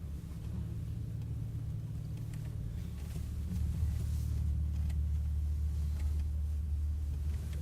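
Land Rover Discovery creeping down a steep slope, a steady low drone of engine and drivetrain heard from inside the cabin.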